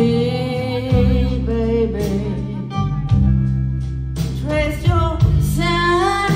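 Live band playing a slow country-soul ballad: acoustic guitar strumming over steady, sustained bass notes, with a gliding melody line carried above them.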